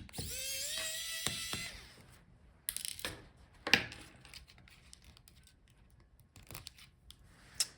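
Laptop Wi-Fi card being removed by hand: a squeaky scrape lasting about a second and a half, then a few sharp clicks and small taps of the card and hardware.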